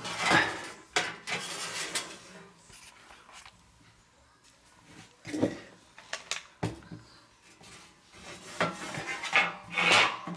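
Clattering and knocking in irregular bursts as the rear cover of a refrigerator is handled and opened, with a few sharp knocks in between.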